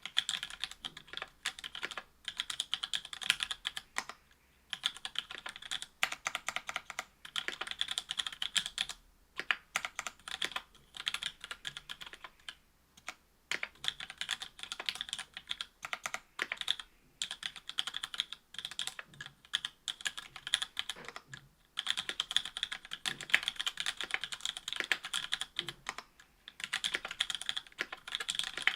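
Mechanical keyboard typing on a Duck Orion V2.5 with stock, unlubed Cherry Hyperglide MX Black linear switches, an FR-4 plate and GMK keycaps. The keystrokes come in quick runs of clicks, separated by short pauses.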